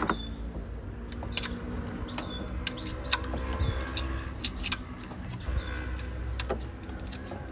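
Wrench clinking on a bolt in a car's engine bay: irregular sharp metallic clicks, with birds chirping faintly.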